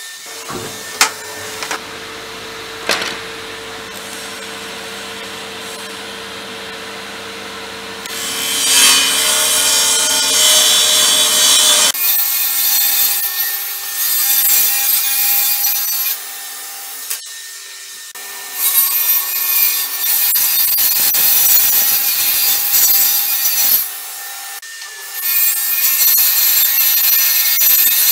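Table saw ripping 18 mm (3/4 inch) WBP plywood. The blade runs steadily at first, then cuts through the sheet with a louder rushing sound about eight seconds in. The cutting breaks off briefly twice and starts again.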